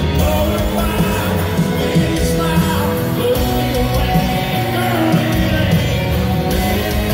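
Live country band playing in an arena, with electric guitars, drums and a singer's voice over the amplified mix.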